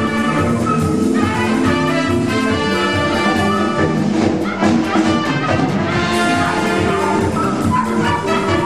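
Band music led by brass instruments, played by a circus orchestra, steady and loud throughout.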